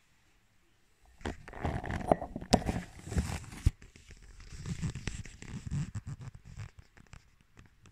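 Rustling, scraping handling noise from a hand-held phone being moved about, starting about a second in, with a few sharp clicks, then a softer, lower rustle that dies away near the end.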